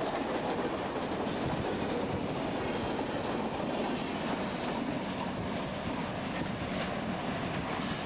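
Freight train cars rolling past at close range: a steady rumble and rattle of steel wheels on the rails, with the last cars going by near the end.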